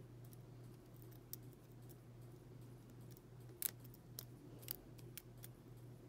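Faint small metallic clicks and scratches of a lock pick working the pins of a brass padlock held under heavy tension from a tension wrench, with a sharper click about three and a half seconds in. A steady low hum runs underneath.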